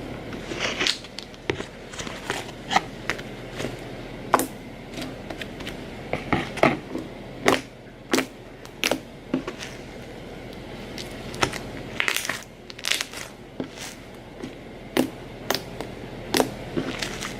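Homemade fluffy slime squeezed and worked by hand, giving irregular crackling pops.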